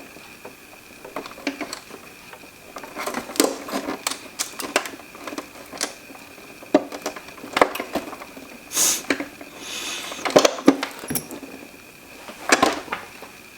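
Irregular clicks, knocks and scrapes of a screwdriver working at a tight Phillips screw in a plastic humidifier base as the housing is handled, with a brief hiss about nine seconds in.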